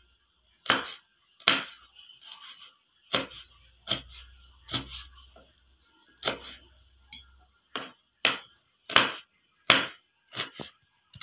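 Kitchen knife chopping bird's eye chilies on a plastic cutting board: about a dozen sharp knocks at an uneven pace, a couple of them in quick pairs near the end.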